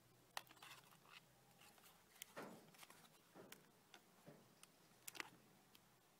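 Faint handling noise from two plastic Sony TCM-100 cassette recorders being turned over in the hands: scattered light clicks and knocks of the casings and brief rubbing of skin on plastic, over a faint steady hum.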